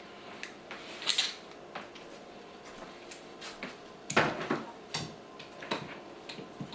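A few scattered light knocks and clicks of tools or parts being handled, the loudest a clunk about four seconds in, over a faint steady hum.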